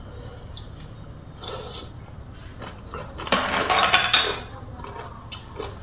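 Spoon and fork clinking against a plate a few times, with a louder burst of close-up chewing a little past the middle.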